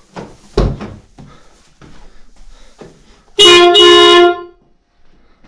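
Newly fitted aftermarket car horn on a Mitsubishi Lancer X sounding loudly for about a second, in two back-to-back blasts, as it is tested with the front bumper off. A sharp thump comes about half a second in.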